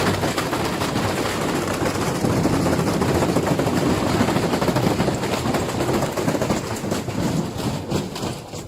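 Washing machine running violently, a dense continuous clattering and banging with a heavy rumble that eases off near the end.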